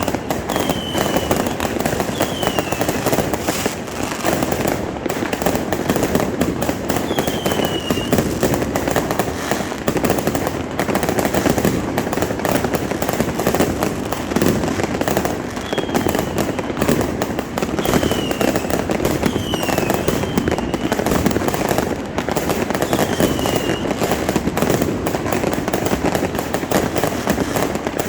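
Fireworks going off in a dense, continuous crackle, with short falling whistles breaking through every few seconds.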